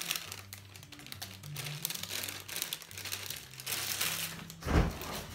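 Plastic cake-mix bag crinkling as powdered chocolate cake mix is shaken out of it into a glass bowl and the empty bag is handled and crumpled, with a dull thump near the end.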